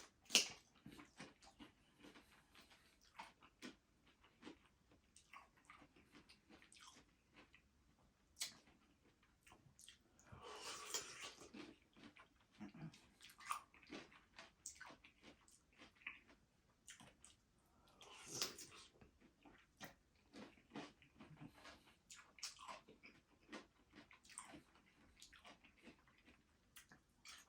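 Faint eating sounds of a person chewing close to the microphone: scattered soft clicks and smacks, with two longer hissing, slurping-like noises about ten and eighteen seconds in.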